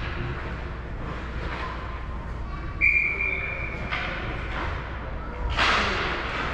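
Referee's whistle blown once, a shrill steady tone lasting under a second, over the faint murmur of an ice rink. A short burst of noise follows near the end.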